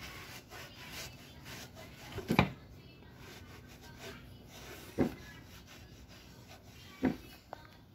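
A cloth rubbing over a polished aluminium scooter deck, a soft scraping, broken by three sharp knocks about two and a half seconds apart, the first the loudest.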